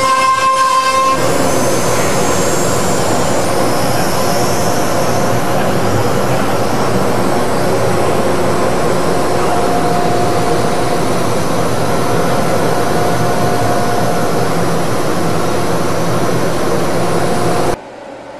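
CNC router running: a high spindle whine for about the first second, then a steady loud rushing machine noise that cuts off suddenly near the end.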